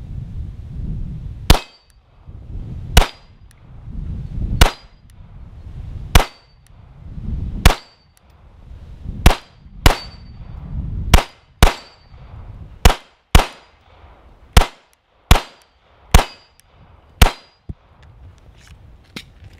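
Fifteen 9mm pistol shots from a custom Agency Arms Glock 17 firing target-load ammunition. Slow aimed shots come about a second and a half apart, then quicker pairs about half a second apart.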